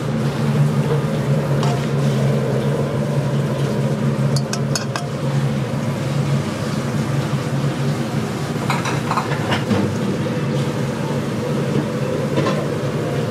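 Metal tongs clinking against a wok and ceramic bowls as braised beef and broth are poured over noodles, a few short clinks scattered through. Under it a steady low kitchen hum.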